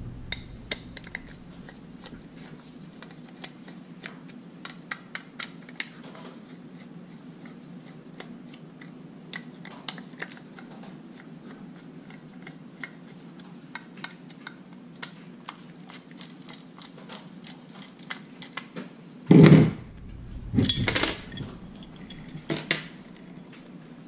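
Small screws being turned out of a metal lock housing with a hand screwdriver, with faint scattered clicks and ticks. Near the end come a few louder knocks and metallic clinks as the screws and parts are set down on the table.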